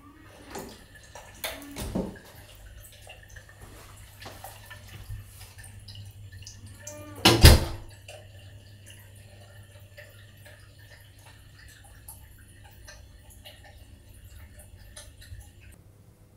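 Metal lever handle and latch of a door clicking several times as the door is opened, then one loud short bang about halfway through, followed by faint scattered clicks in a small, echoing room.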